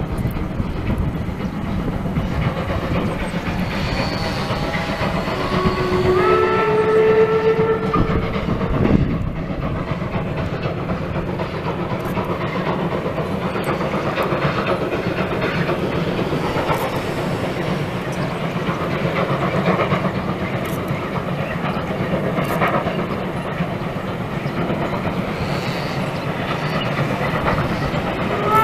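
Steam locomotive whistle, a chord of tones that steps up in pitch about five seconds in and holds for a couple of seconds, over the steady rumble of the train crossing a steel trestle viaduct. Another whistle starts at the very end.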